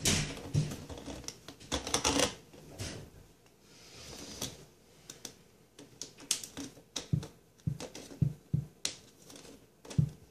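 Plastic handling noise from a corrugated flexible P-trap tube and a white plastic slip nut being worked along it by hand: irregular clicks, rattles and short rustles, with a cluster of clicks near the start and a string of sharp clicks in the second half.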